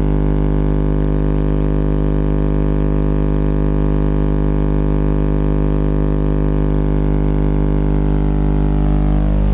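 Alpine Type S 12-inch subwoofer (S-W12D4) playing a bass test track: a loud, steady, very deep drone with a stack of overtones above it. Near the end the higher overtones fade away while the deep tone carries on.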